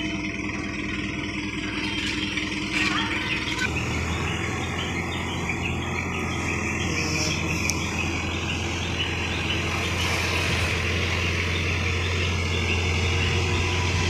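Diesel engine of heavy machinery running steadily. A deep, steady hum becomes much stronger about four seconds in.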